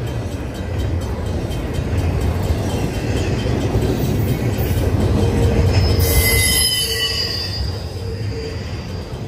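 Double-stack intermodal freight cars rolling past with a steady low rumble. About six seconds in the wheels squeal high for a second or two.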